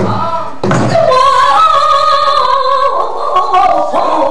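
A woman singing pansori, holding one long wordless note with a wavering pitch after a sharp attack about half a second in, then stepping down to lower notes in the last second.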